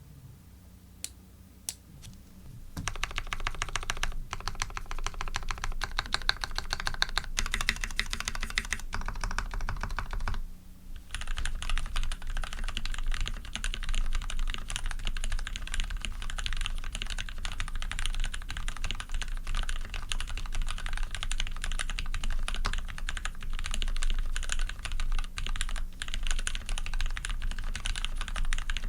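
PC Dolphin custom mechanical keyboard with a brass plate, lubed Cherry Retooled Black linear switches and PBT keycaps being typed on: a few single keystrokes, then fast continuous typing from about three seconds in, with a brief pause about a third of the way through.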